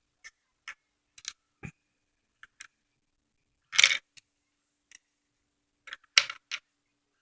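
Lego bricks being handled and pressed together: scattered small plastic clicks, with a louder rattling clatter about four seconds in and another about six seconds in.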